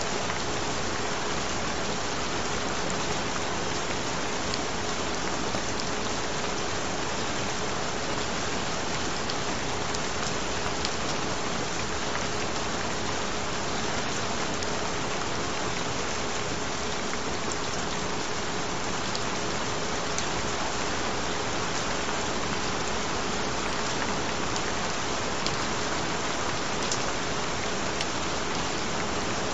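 Steady rain falling on a surface, an even hiss with scattered small drop ticks. A single faint steady tone is held underneath.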